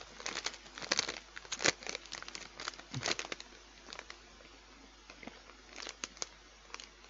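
Dry crackling crunches close to a headset microphone, thick for the first three seconds or so and then sparse: crisps being chewed and their packet handled.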